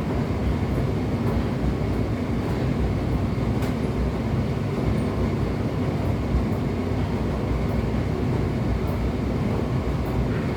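Indesit condenser tumble dryer running, its drum turning with a steady low rumble and a few light knocks. It is the banging on turning that the owner puts down to a worn drum.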